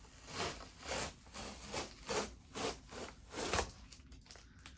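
Box cutter slicing through packing tape and cardboard on a shipping box, a series of short scraping strokes about two a second that grow fainter near the end.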